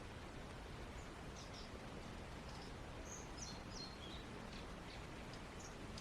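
Faint outdoor ambience: small birds chirping now and then over a steady low hiss.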